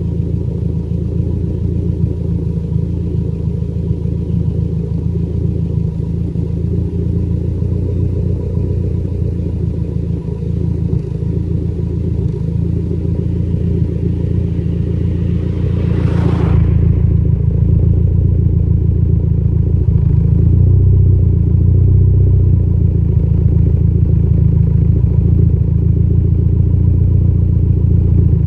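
Engine idling with a light, uneven misfire. About sixteen seconds in there is a brief whoosh, after which the engine is louder.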